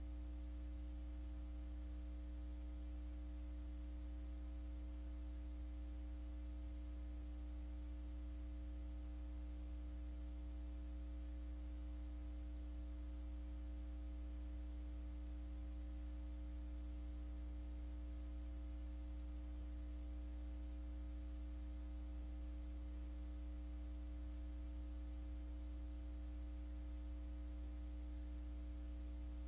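Steady low electrical mains hum with a faint hiss behind it.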